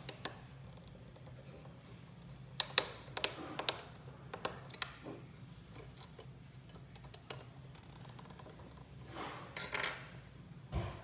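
Small screwdriver clicking and scraping in the fan screws of an AMD stock CPU cooler as the screws are worked loose: scattered sharp ticks, several in quick succession about two and a half seconds in. Near the end the plastic-shrouded cooler is handled with a rustling clatter and a thump, over a steady low hum.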